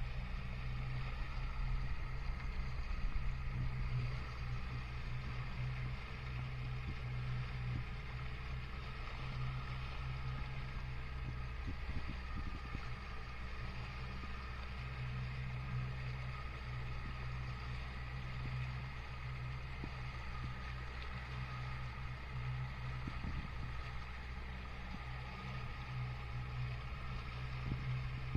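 Yamaha 75 hp four-stroke outboard motor running steadily at a constant speed, with the hiss of churning water from the boat's wake.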